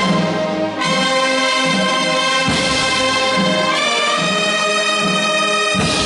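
A wind band of flutes, clarinets, saxophones and brass playing held chords, with the brass to the fore and the bass line moving in steps. A short crash sounds about two and a half seconds in and again near the end.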